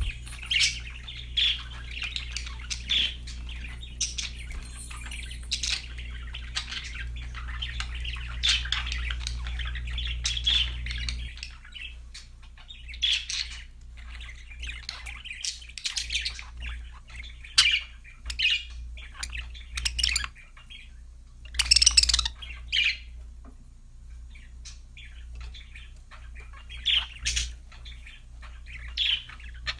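Budgerigars chirping and chattering: a dense run of warbling chirps for about the first third, then scattered chirps and a loud squawk about two-thirds through. A low hum sits underneath and drops about a third of the way in.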